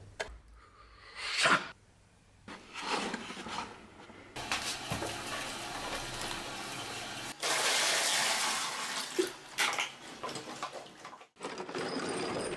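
A thin cut-open plastic bottle crinkles and crackles in the hands. Then a stream of water pours steadily into it for several seconds, louder from about halfway through. Near the end the plastic crackles again as the bottle is picked up.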